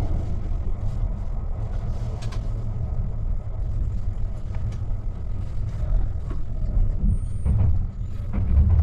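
Cabin running noise of a Kintetsu 80000 series Hinotori limited express train travelling at speed: a steady low rumble, with a few sharp clicks, most of them near the end.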